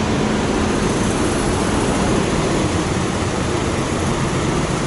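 Steady drone of idling diesel semi trucks in a truck stop parking lot, an even roar with a low hum under it.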